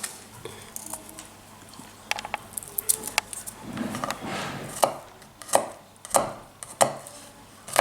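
Garlic being chopped with a Mora knife on a cutting board. A few light scattered taps at first, then regular blade strokes about one every two-thirds of a second in the second half.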